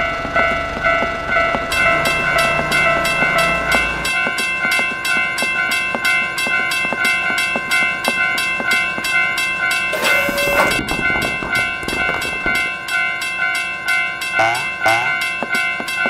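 Railroad crossing warning bells ringing over and over in a rapid, even rhythm, with a low rumble that stops about four seconds in and a brief loud horn-like blast about ten seconds in.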